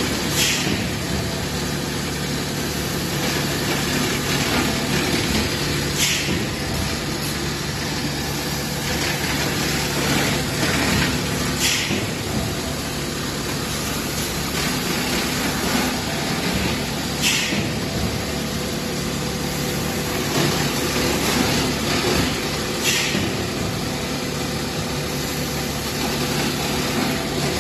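Plastic cup thermoforming line with in-line crusher running: a steady machine hum and rumble, with a short hiss about every five and a half seconds as the line cycles.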